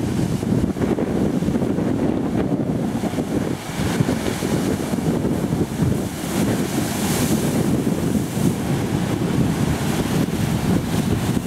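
Heavy ocean surf breaking against a rock ledge and churning, with wind buffeting the microphone.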